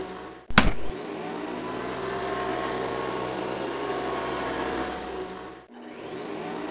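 Upright vacuum cleaner motor running with a steady whir. A short, sharp loud bang comes about half a second in, and near the end the whir briefly drops out before picking up again.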